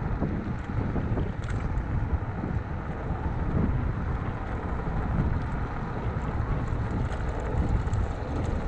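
Wind buffeting the microphone of a moving electric scooter, a steady low rumbling rush with no clear motor whine.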